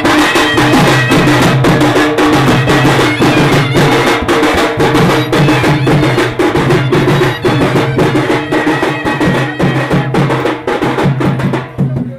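Live procession band music: fast, steady drumming under a wind instrument playing a held, shifting melody.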